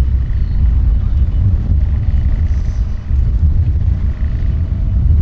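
Formula Offroad buggy's engine running under load as its paddle tyres dig up a loose gravel slope, heard as a steady heavy low rumble.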